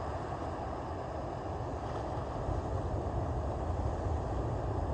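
Steady rushing of ocean surf, with wind buffeting the microphone in an uneven low rumble.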